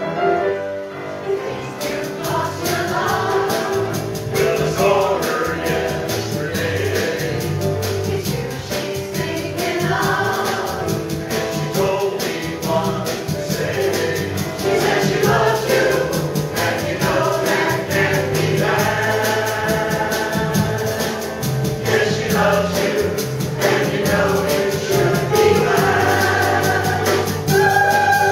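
Mixed choir of men and women singing with instrumental accompaniment and a steady beat.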